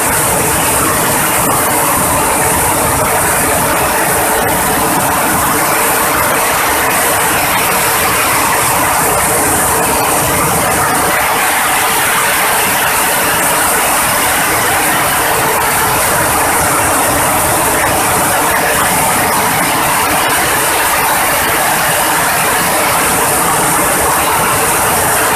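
Engine-driven coffee huller running steadily while hulling dried parchment coffee, a loud, unbroken mechanical noise that does not change.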